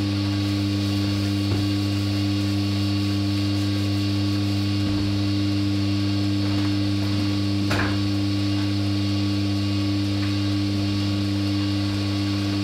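Small electric dough mixer running steadily with a continuous hum, kneading a batch of sourdough bread dough that is nearly fully mixed. A couple of faint knocks come over it, once early and once about two-thirds through.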